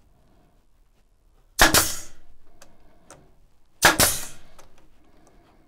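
Pneumatic nail gun firing twice into plywood, driving nails to fix a glued strip on a bandsaw jig. Each shot is a sharp double crack with a short fading tail. The second shot comes about two seconds after the first.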